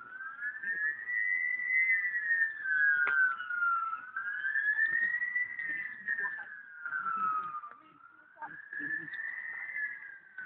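A wailing siren whose pitch rises and falls slowly, about once every four seconds, with two slightly offset tones sounding together.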